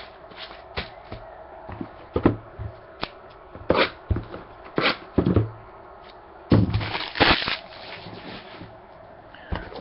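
Trading cards and their packaging being handled: a scattered series of sharp clicks, taps and snaps, with a longer crinkling rustle about six and a half seconds in.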